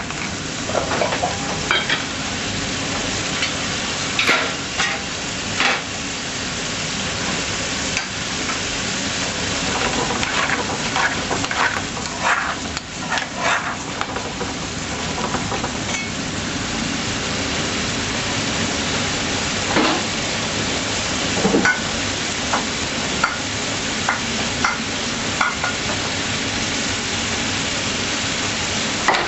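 Garlic chicken tikka curry sizzling steadily in a metal frying pan on a gas burner. A metal spoon scrapes and clinks against the pan now and then as the curry is stirred.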